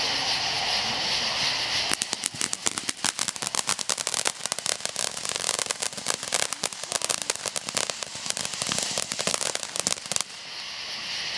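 Consumer ground-fountain firework going off. A steady hiss runs for about two seconds, then gives way to a dense crackle of rapid small pops from its crackling stars. The crackle stops about ten seconds in, leaving the hiss.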